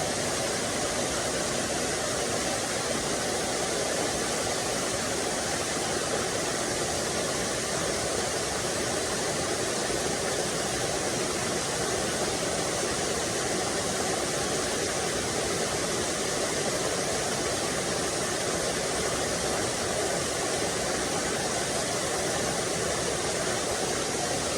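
Small forest waterfall and stream, water rushing with a steady, even noise.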